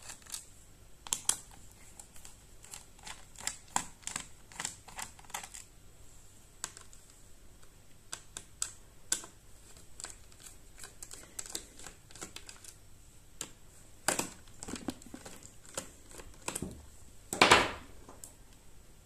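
Irregular light clicks and taps of a Phillips screwdriver working the bottom-cover screws of a Dell Latitude 7290 laptop, as the screws are loosened one after another. There is a louder scuff of handling on the case near the end.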